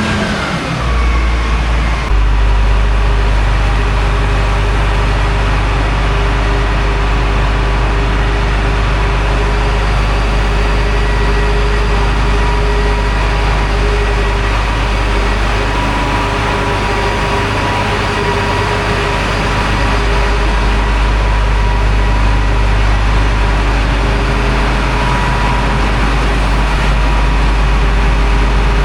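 Heavy diesel engine of farm machinery running steadily, a low hum with a steady whine over it; a whine falls in pitch in the first couple of seconds.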